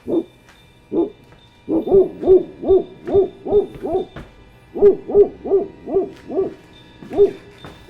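A dog barking over and over: about fifteen short, evenly pitched woofs, mostly in two quick runs of roughly three a second with a short pause near the middle.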